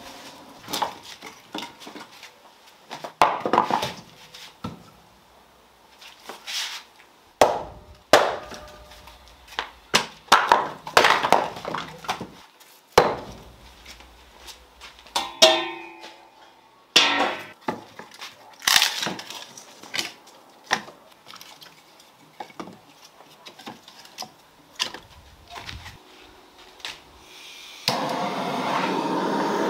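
Split firewood logs knocking and clunking against brick and each other as they are stacked by hand into a brick wood-fired oven, a dozen or so separate knocks. Near the end a handheld gas blowtorch is lit and starts a loud, steady hiss.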